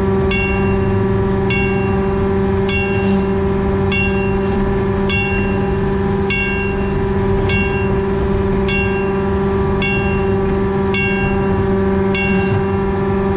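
Diesel engine of a diesel-hydraulic narrow-gauge locomotive running steadily under way, a constant pitched drone heard from the cab. A short, high metallic ring repeats about once every second over it.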